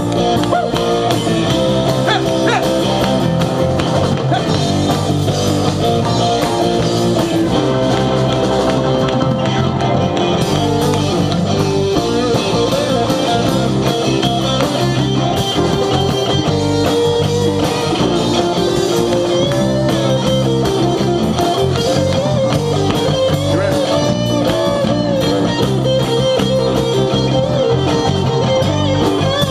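Live rock band playing loudly and steadily: electric guitars, drum kit and keyboard.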